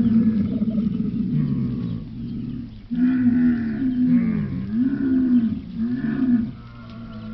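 A large farm animal calling: a long low call with a wavering pitch, then after a brief gap a string of shorter, rising-and-falling calls that trail off near the end.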